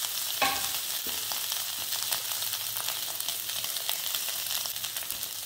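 Hot coconut-oil tempering sizzling steadily in a kadai as boiled, crumbled potatoes are scraped in from a steel bowl, with small clicks and scrapes of metal on the pan and one ringing clink about half a second in.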